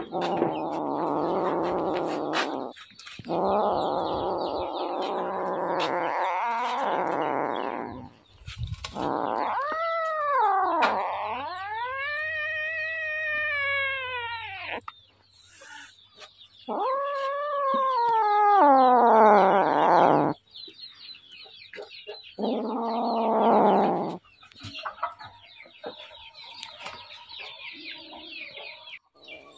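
Kittens growling and yowling while they eat: rough, low growling for the first eight seconds or so, then two long drawn-out yowls that rise and fall in pitch, and a shorter growl a few seconds later.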